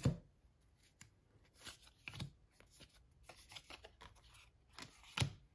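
A stack of baseball trading cards being flipped through by hand, each card slid off the front and tucked behind the others: soft, scattered flicks and rustles, with a sharper snap right at the start and another about five seconds in.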